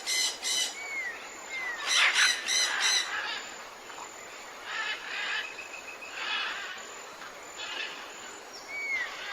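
Several wild birds calling in the morning: harsh, scratchy calls near the start and again around two to three seconds in, then softer chattering calls about every second and a half, with a few short slurred whistles.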